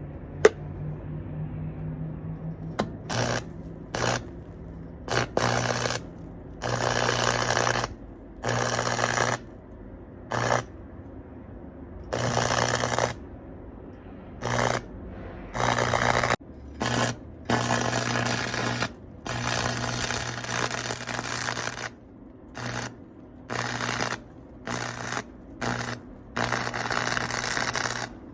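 Stick (arc) welder crackling in short on-off bursts, each a fraction of a second to about a second and a half long, with a low buzz that grows louder while the arc burns: short welds being laid on a muffler pipe. A sharp click comes about half a second in.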